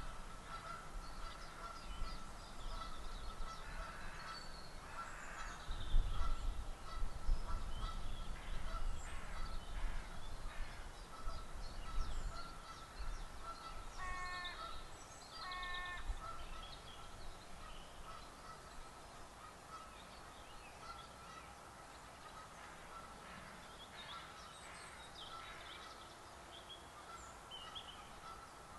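Background birdsong of small songbirds chirping and singing, with two honks of a Canada goose about halfway through, under two seconds apart. A low rumble sits underneath from about six to twelve seconds in.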